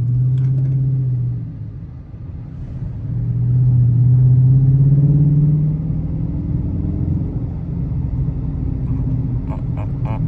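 Car engine pulling twice under acceleration: a low drone, short at first, then a longer pull from about three seconds in that rises slightly in pitch before easing off. Steady low road noise runs beneath it.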